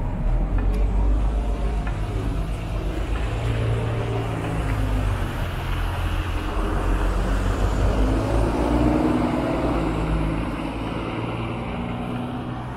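Road traffic at a street intersection, dominated by the low engine drone of heavy vehicles that include a city bus, with the engine pitch rising and falling as they pull away. The sound comes up sharply at the start and eases off near the end.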